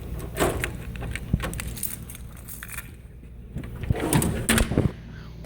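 Metal toolbox drawers sliding and hand tools clinking, in two bursts of rattling and knocks: one about half a second in and one around four seconds in. A steady low hum runs underneath.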